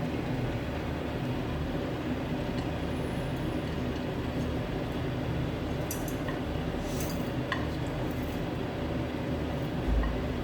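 A steady low hum and even kitchen background noise, with a few light clinks of utensils or dishes about six to seven and a half seconds in.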